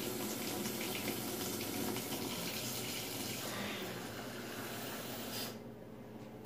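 Kitchen sink tap running, water splashing as a cup is rinsed under it; the water shuts off about five and a half seconds in.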